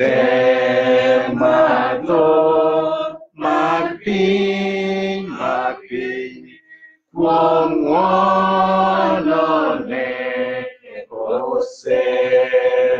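A man singing a Luo-language hymn solo and unaccompanied, in long held phrases with short breaks between them.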